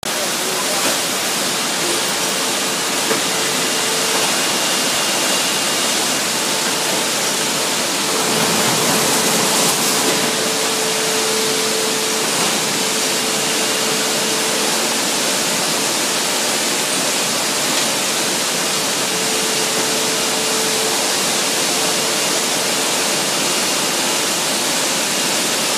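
Steady, loud hiss of factory machinery from powered roller conveyors and a turntable pallet stretch-wrapper, with a faint motor whine coming and going.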